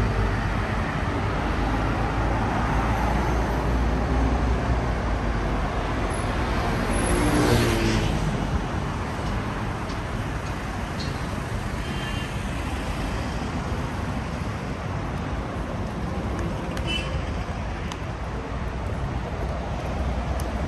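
City street traffic with a steady rumble of engines and tyres from passing cars and buses. One vehicle passes close, loudest about seven seconds in.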